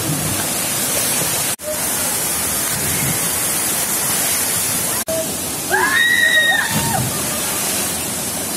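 Steady rushing of a waterfall pouring into a pool, cut off for a split second twice. About six seconds in, a person gives a drawn-out shout lasting about a second.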